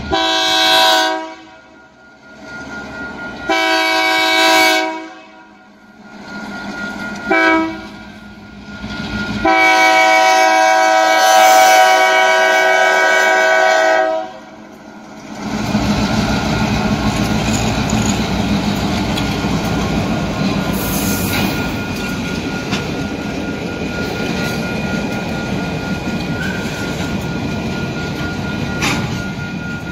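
Diesel freight locomotive's horn sounding the grade-crossing signal: long, long, short, long. The crossing bell dings steadily underneath. After the last blast the train rolls through the crossing with a continuous rumble and clatter of freight car wheels over the rails.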